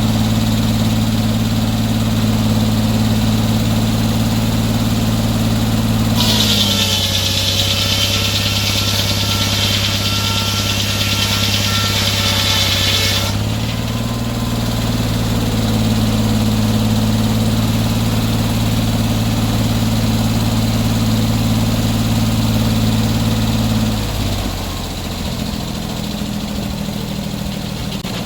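Sawmill engine running steadily. For about seven seconds, starting some six seconds in, a loud harsh hiss rises over it while the engine note sags slightly. Near the end the engine note drops lower and quieter.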